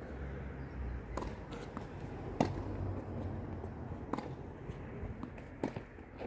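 Tennis rally: four sharp pops of the ball struck by rackets, roughly every one and a half seconds, with fainter ball bounces between, over a steady low rumble.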